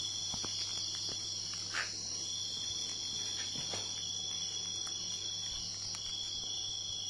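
A steady, unbroken high trill of insects, crickets or similar, runs throughout, with a few faint ticks and taps over it.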